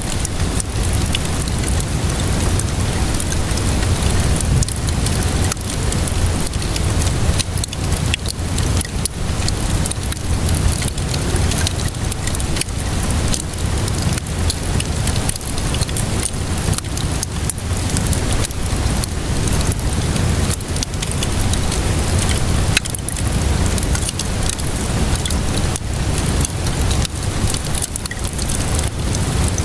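Wood fire crackling with frequent sharp pops over a steady hiss of rain, with a deep even rumble underneath.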